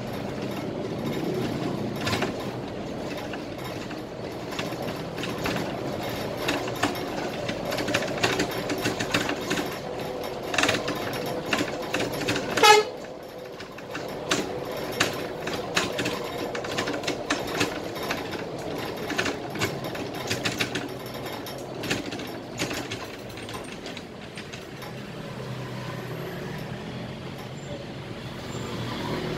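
Scania K320IA articulated bus driving in city traffic, heard from the driver's cab: steady engine and road noise with frequent rattles and clicks from the cabin. A brief loud burst comes about halfway through.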